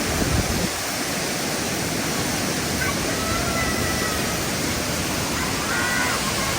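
Waterfall rushing steadily, close by, a dense unbroken roar of falling water.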